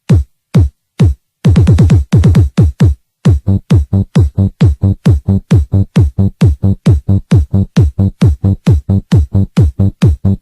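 Electronic dance music dominated by a heavy, booming kick drum: a few isolated hits with silent gaps at first, then a steady fast run of about four kicks a second from about a third of the way in.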